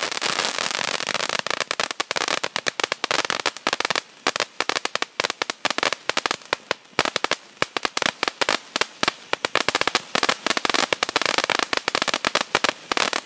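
Wolff 6405 Familie Juweel compound of fountains burning: a steady hiss of spraying sparks for about the first second and a half, then dense, rapid crackling pops for the rest.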